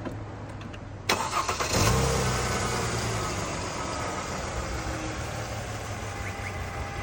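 Mercedes-Benz GLK 350's 3.5-litre V6 cranked by the starter about a second in, catching within a second and settling to a steady idle. The engine still has the cylinder 2 misfire that sets the fault code.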